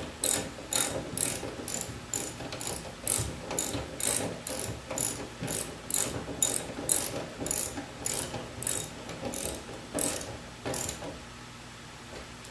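Garage door opener with a newly fitted drive belt on its first test run, a steady run of regular mechanical clicks about two and a half a second that stops about eleven seconds in.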